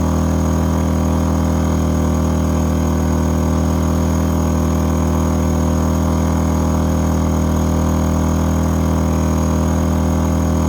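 A-iPower SUA1500i inverter generator running steadily at raised speed under a heavy load of about 1,200 watts from an electric heater, holding without tripping its overload cutout.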